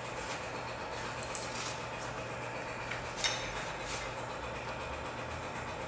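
Large Allen wrench clinking twice against the metal clamp of a Shelby tube extruder as the set screw that holds the tube is tightened, over a steady low hum.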